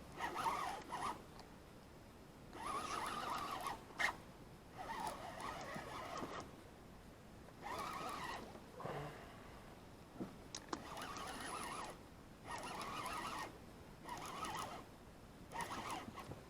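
Baitcasting fishing reel being cranked in short bursts, about once every two seconds, as line is wound in on a hooked catfish between pumps of the rod.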